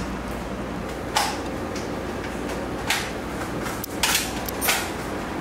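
A few short, sharp handling noises, about four in all, over a low steady hum.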